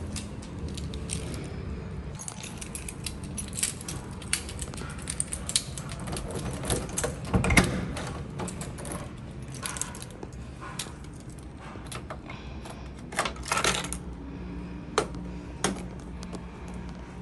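Irregular clicks, taps and light rattles over a steady low hum, with a heavier knock about seven and a half seconds in.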